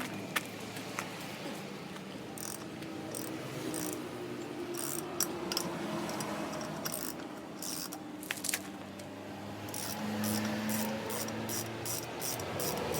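Hand wrenches working the rear axle nut of a motorcycle as it is loosened: scattered light metallic clicks and scrapes, coming faster near the end.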